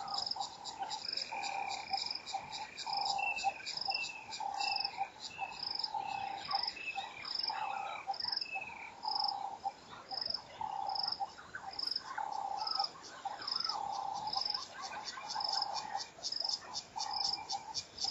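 Chorus of insects and frogs: a fast high trill runs throughout, with a repeated call about once a second and a higher chirp pulsing a little faster. In the first half there is a series of short falling chirps.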